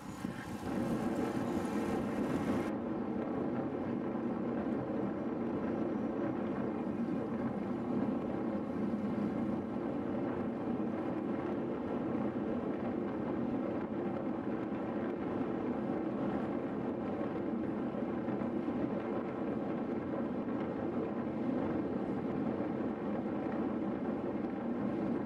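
Steady rushing wind and road noise on the microphone of a camera riding on a road bicycle at speed, turning duller a few seconds in.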